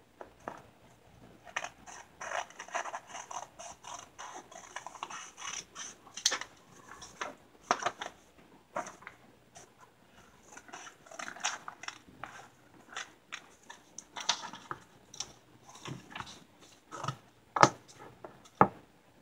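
Scissors cutting folded paper: irregular snips with the paper rustling and crinkling as it is handled, and a couple of sharper clicks near the end.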